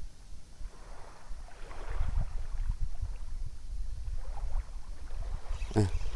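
Uneven low rumble of wind buffeting the microphone in the open air. Near the end there is a short spoken sound.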